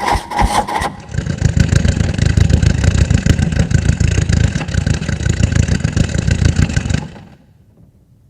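Car engine being cranked by the starter, catching about a second in and running with a fast, even pulse for about six seconds, then cutting off and dying away.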